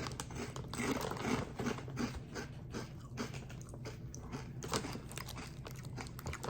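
A person biting and chewing thick, hard kettle-cooked tortilla chips (Takis Kettlez), close to the microphone: a run of irregular loud crunches, densest in the first few seconds, with a sharper crack near the end.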